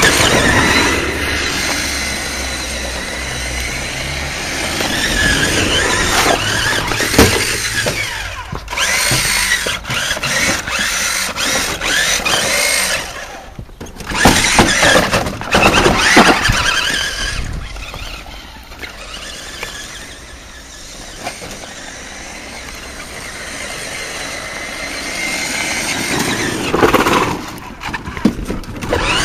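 Radio-controlled Hummer H2 model truck's electric motor and gears whining in repeated surges, the pitch gliding up and down as the throttle is worked, with quieter stretches between.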